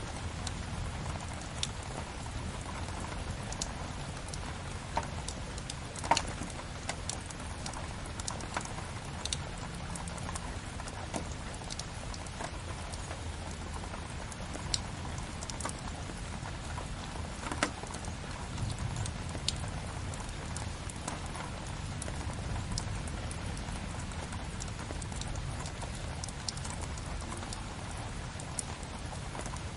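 Steady rain layered with a crackling wood fire: a continuous hiss of rain and low rumble, broken by scattered sharp pops from the fire, the loudest about six seconds in and another shortly before the middle.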